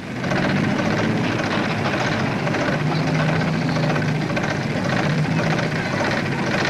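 Forklift truck engine running steadily: a low, even hum under a wash of noise.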